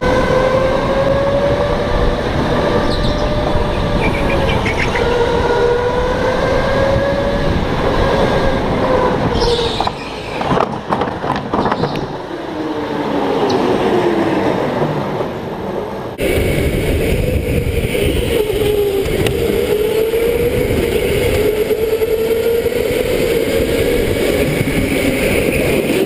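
Indoor electric go-kart motors whining, the pitch rising and falling with speed through the corners. About ten seconds in there is a short burst of knocks and rattles, then the whine falls away as the kart slows, before a different kart's whine takes over.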